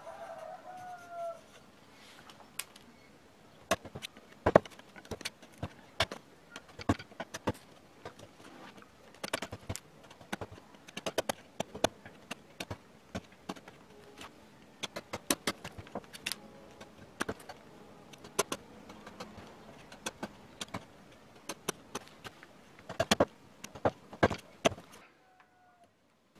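A wide #2 wood-carving gouge (28 mm) cutting chips from a hardwood relief panel: a string of sharp, irregular taps and cracks, several a second, as the edge bites and chips break off.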